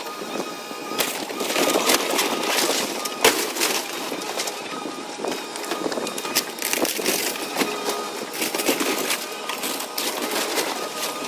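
Wood-frame house being torn apart by a CAT excavator: timber and roofing crack, splinter and crunch in many sharp snaps over the steady sound of the machine working.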